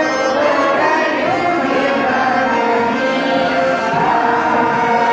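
A group of people singing a song together to a garmon (Russian button accordion), with long held notes.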